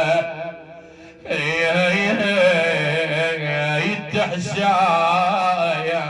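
A man's voice chanting a mourning lament for Imam Husayn in long, ornamented lines with a wavering pitch. The chant breaks off for about a second near the start, then resumes.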